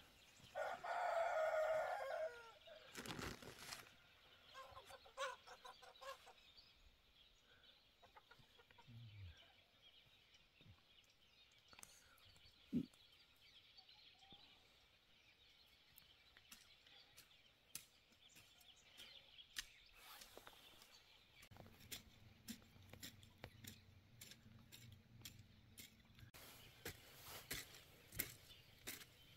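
A rooster crowing once, loud and wavering for about two seconds near the start, then a fainter call a few seconds later. Afterwards only scattered light clicks and knocks, with a low steady hum coming in about two-thirds of the way through.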